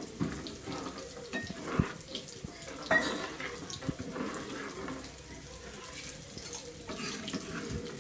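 Metal ladle stirring thin coconut-milk fish gravy in a metal kadai, a wet sloshing, with a couple of sharp clinks of the ladle against the pan about two and three seconds in.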